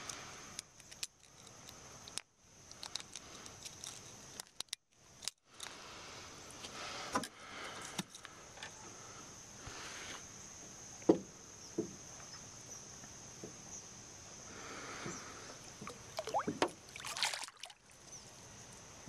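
Light water sloshing and trickling at the side of a small fishing boat, with scattered clicks and knocks of fishing gear being handled, one sharp click about 11 seconds in, and a busier burst of splashing near the end. A faint steady high-pitched tone runs underneath.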